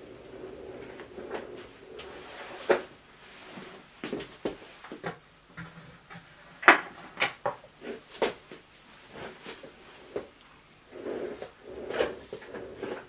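Hard objects being handled and set down: an irregular series of clicks, knocks and clatter, the sharpest knock about halfway through, with softer rustling near the start and near the end.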